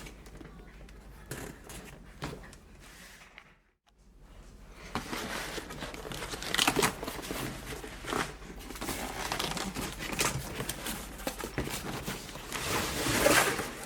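Product packaging being opened by hand: rustling and crinkling handling noise. It is faint for the first few seconds, drops out briefly about four seconds in, then grows busier with sharper crackles and is loudest near the end.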